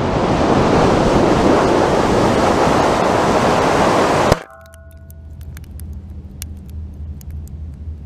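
Air rushing loudly over a 3D-printed GoPro rocket cam as it flies and falls, a steady rush that swells slightly, cut off about four seconds in by a sharp impact with a brief ring as the rocket hits the ground. After landing, a low hum with scattered light ticks.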